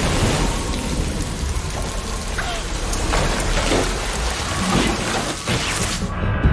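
Heavy water gushing and spraying in a torrent, a dense rushing noise that cuts off abruptly near the end.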